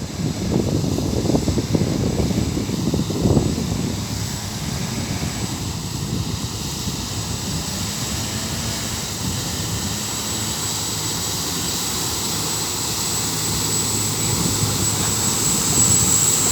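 A boat's 410 hp Mercedes diesel engine running steadily under way, a deep drone with a high steady whine over it, rougher and louder for the first few seconds.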